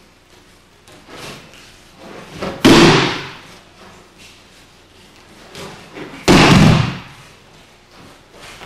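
Two loud thuds of a body slapping onto a mat in aikido breakfalls, about three and a half seconds apart, each dying away over about half a second, with a few fainter knocks of feet on the mat between them.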